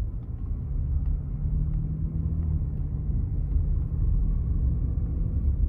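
Steady low road and engine rumble inside a moving car, picked up by a phone mounted on the dash.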